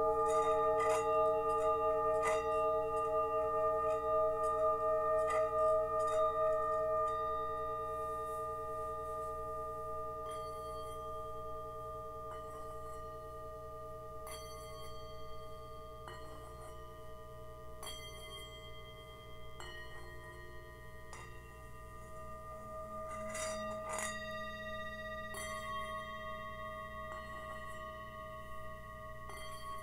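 Himalayan singing bowls ringing: several overlapping steady tones that waver and slowly fade, renewed by light strikes of a wooden mallet here and there. A brighter strike about three-quarters of the way through sets higher tones ringing.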